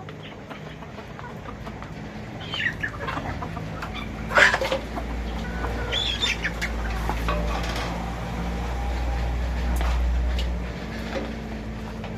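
Flock of chickens clucking, with several sharper calls about two to six seconds in, the loudest near the middle. A steady low hum and a low rumble run underneath.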